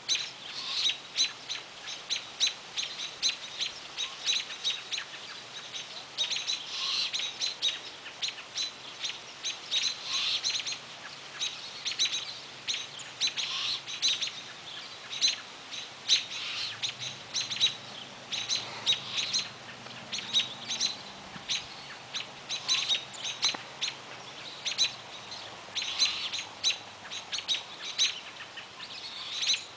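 Small songbirds chirping in a steady stream of short, high notes, several a second, with no pause.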